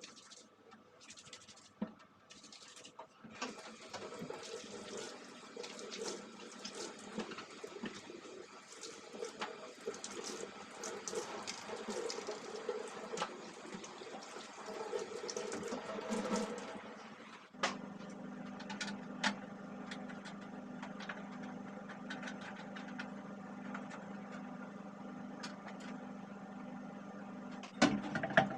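Tap water running into a sink with small clatters, as when parts are being washed. About two-thirds of the way in, this gives way suddenly to a steady electric motor hum.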